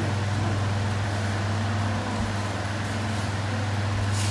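Steady low machine hum, the drone of running fan or air-conditioning equipment. There is a soft thump about two seconds in and a sharp slap near the end.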